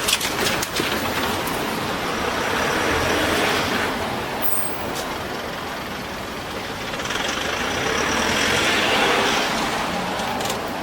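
Road traffic crossing a railway level crossing: a few sharp clacks of tyres going over the rails in the first second or so, then two swells of engine and tyre noise as motor vehicles pass, one about three seconds in and one near the end.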